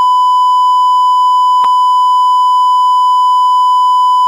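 Electronic beep tone: one loud, high, steady pitch held without a break, with a single faint click about a second and a half in.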